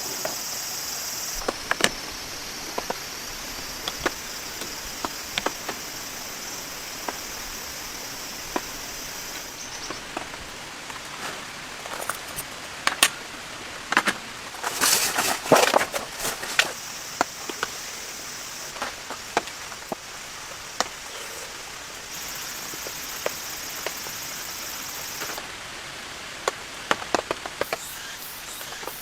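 Steady rain with many scattered sharp taps and clicks, which come thickest about halfway through. A high, even hiss starts and stops several times.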